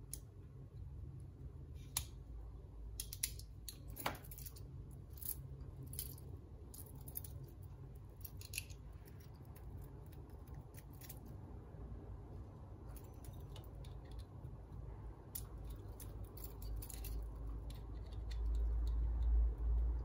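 Stainless steel links of a Leatherman multi-tool bracelet and a metal multi-tool clicking and clinking as they are handled and taken apart, in irregular sharp clicks. A low rumble of handling grows near the end.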